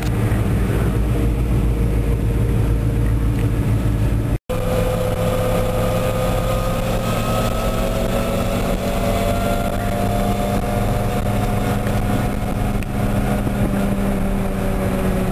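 Engine of a 1948 Ford F1 pickup running, heard from inside the cab with road and wind noise. There is a short break about four and a half seconds in; after it the engine runs steadily under way, its pitch slowly rising and then easing.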